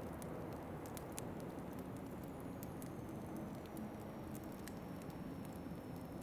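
Wood fire crackling, with sharp irregular pops and snaps, over a steady low rush of wind.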